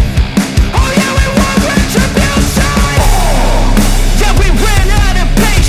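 Rock-style background music with a driving drum beat of about four hits a second; a heavy, steady bass comes in about three seconds in.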